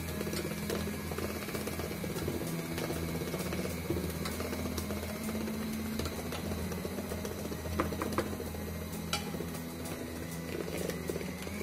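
Electric hand mixer running steadily, its beaters whisking sponge-cake batter as flour is added little by little. A few sharp clicks come about eight and nine seconds in.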